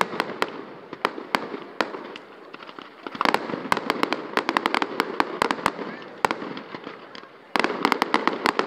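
Fireworks display: aerial shells bursting with many sharp cracks and pops over a continuous crackle. The crackling thickens and grows louder about three seconds in and again near the end.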